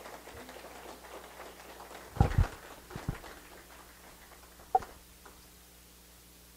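Light scattered clapping from the congregation dying away, with a few low thumps about two and three seconds in and a single sharp knock near five seconds.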